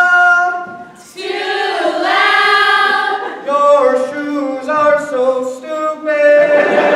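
A group of voices singing a cappella: a held note fades out within the first second, then after a short gap several voices start a new phrase whose notes step up and down. Near the end a rougher, noisier sound joins the singing.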